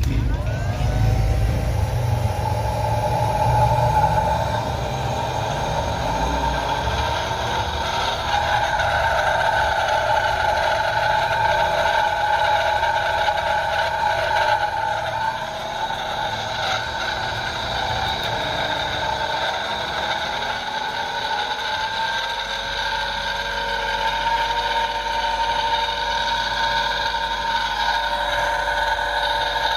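Electric motor run from a variable frequency drive, with a steady electronic whine. The pitch rises as the drive ramps the motor up in the first couple of seconds, and it rises again about two-thirds of the way through.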